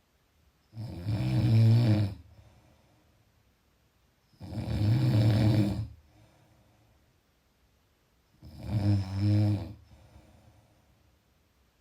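Snoring: three loud snores about four seconds apart, each lasting around a second and a half, with faint breathing in the pauses between them.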